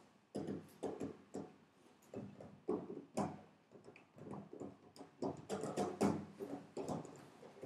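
Hand knocking and slapping on a wooden door in a string of irregular strokes, more than a dozen.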